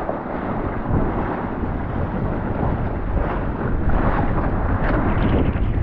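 Strong, gusty wind buffeting the microphone aboard a small sailing keelboat: a continuous rumbling roar that swells and eases with the gusts, with the rush of choppy water along the hull beneath it.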